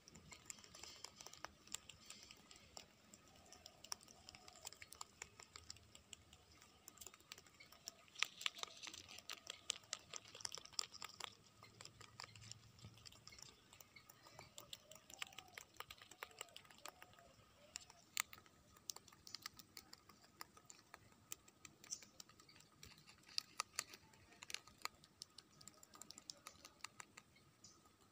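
Young rabbits chewing fresh green leaves close to the microphone: a rapid, irregular run of small crisp crunching clicks.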